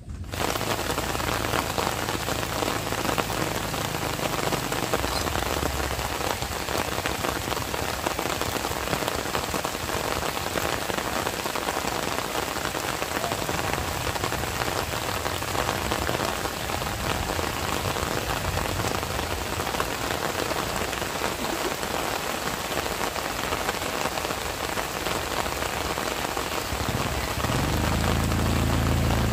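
Steady heavy rain falling, an even hiss that begins suddenly. Near the end a low hum comes in beneath it.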